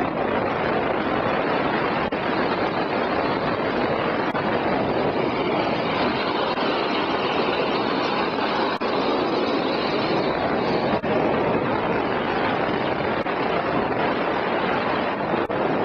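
Steady rushing noise of a gravity-racing trike rolling fast downhill on a wet road: wind and wheel noise. There is no engine and no sudden events.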